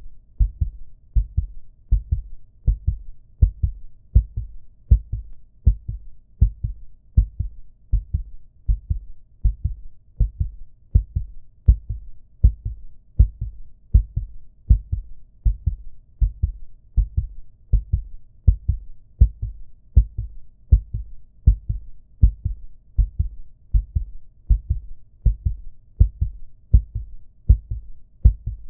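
Heartbeat sound effect: a steady lub-dub, each beat a strong low thump followed by a softer one, at about one beat a second.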